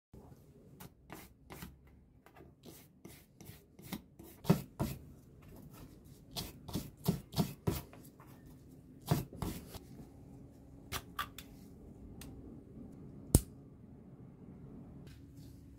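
Stiff brush scrubbing the rusty metal tube of an old pen gun in quick strokes, about two to three a second, stopping after about ten seconds. A few light clicks follow, and a single sharp click near the end.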